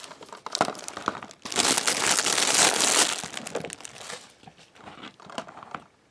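Clear plastic shrink wrap being peeled off a DVD case and crumpled, a dense crackling and crinkling that is loudest about a second and a half in, then thins to scattered crinkles and dies away near the end.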